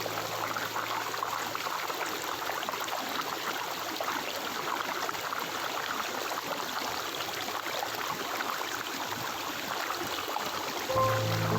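Stream water flowing and babbling steadily. Soft music with sustained tones comes in near the end.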